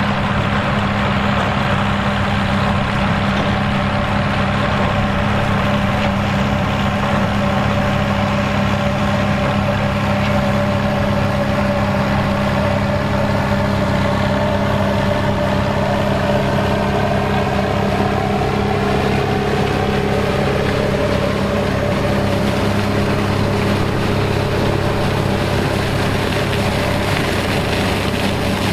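Turbocharged Fiat 800 tractor's diesel engine running steadily under load while working a sugar beet top-cutter. A higher whine dips in pitch and then rises again through the middle.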